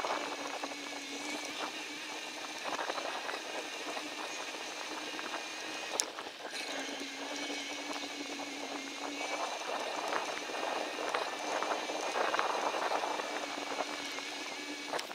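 Bicycle tyres rolling over a woodland dirt trail: a steady crackling rustle full of small ticks and rattles, with one sharper click about six seconds in.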